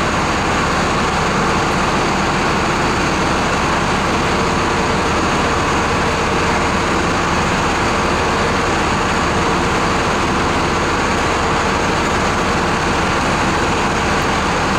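A heavy engine running steadily, the kind that powers the crane hoisting the wrecked car out on its chain; a constant drone with no change in pitch or level.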